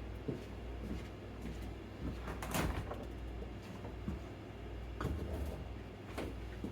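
A refrigerator door and glass jars being handled: scattered knocks and clunks, the loudest a little over two seconds in, over a steady low hum.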